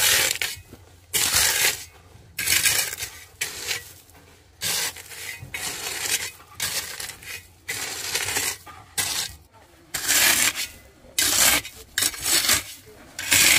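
A hand tool scraping repeatedly on masonry, in short strokes about once a second.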